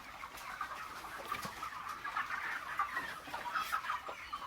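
A shed full of broiler chickens clucking together: a dense, continuous chatter of many overlapping short calls.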